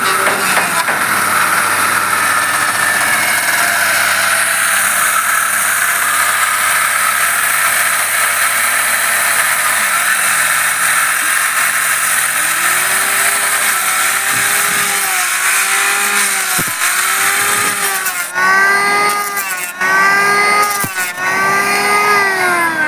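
A handheld electric woodworking power tool cutting along a timber beam, loud. It starts as a steady whine with hiss. From about halfway through it becomes a run of about seven passes, each with a pitch that rises and then falls.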